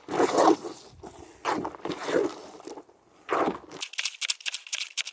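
Breathing Mobile Washer's plunger pumped by hand in a bucket of soapy water and cloth diapers: a wet sloshing, sucking stroke about every second and a half as the cone pulls suction through the wash. From just under four seconds in, a fast crackle of fine clicks, like suds popping, replaces the strokes.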